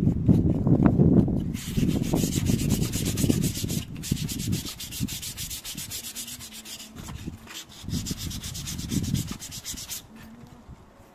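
Sandpaper rubbed back and forth over the worn rubber sole of a throwing shoe in quick, rasping strokes, roughening and cleaning the surface before it is glued. A low rumble comes first, the sanding starts about one and a half seconds in with a brief pause near four seconds, and it stops shortly before the end.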